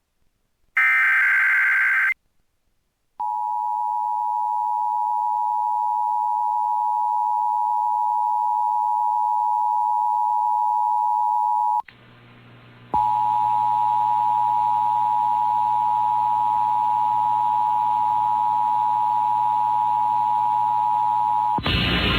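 Emergency Alert System test broadcast on FM radio. It opens with the last burst of the SAME digital header, a short warbling data screech, and after a pause comes the EAS attention signal: a steady two-tone alarm (853 and 960 Hz). The alarm cuts out for about a second midway, then resumes with a low hum under it.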